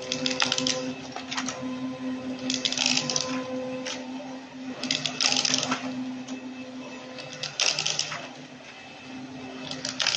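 Yuanhan ZCUT-C120 webbing roll cutting machine running: a steady motor hum, with a short burst of noise about every two and a half seconds as the blade roller cuts the strip.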